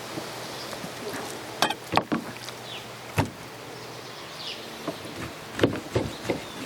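Knife cutting steaks from a chilled beef strip loin: a few sharp knocks of the blade on the cutting board, coming more often near the end, over a steady low hum.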